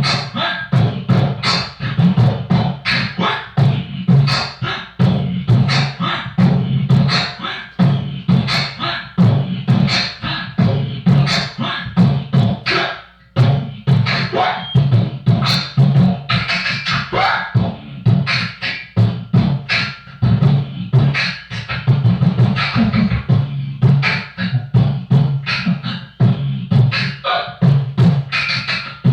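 Solo vocal beatboxing: a fast, steady rhythm of mouth kick and snare clicks over a hummed bass line, with a brief pause about thirteen seconds in.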